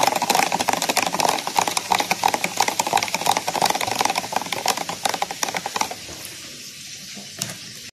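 A metal spoon stirring quickly in a plastic measuring jug, clicking and scraping rapidly against the sides as sugar is dissolved into lemon juice and water. The stirring fades and goes quieter about six seconds in.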